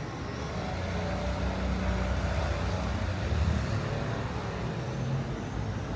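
Street traffic: motor vehicle engines running close by with a steady low rumble, shifting slightly in pitch.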